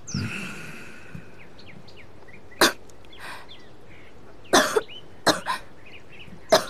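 A woman coughing in several short bouts: a single cough, then pairs of coughs, the last one the loudest.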